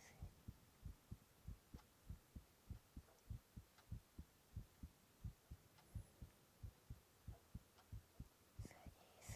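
A person's heartbeat picked up close by a microphone: soft, low, steady thumps, about three a second.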